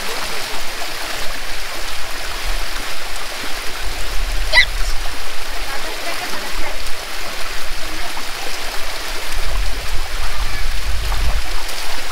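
Shallow water running steadily over stone into a wading pool, a continuous hiss, with children's feet splashing through the water.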